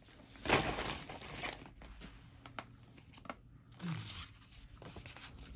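Paper being handled, rustling and crinkling, loudest about half a second in.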